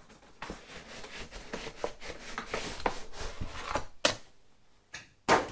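Hard plastic tool carry case sliding out of a cardboard box, with rubbing, scraping and small clicks. Two sharp knocks come near the end, the second louder and just before it ends.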